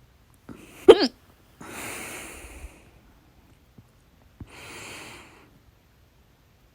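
A woman's loud hiccup about a second in: a sharp, voiced catch in the throat. Two slow, breathy breaths follow.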